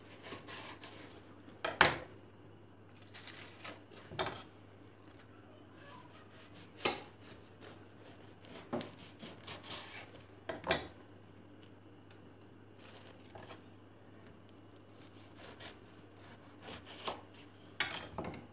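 Kitchen knife cutting through a crusty baked biscotti loaf on a wooden cutting board: a series of irregular crunching cuts and knocks of the blade against the board, some coming in quick pairs.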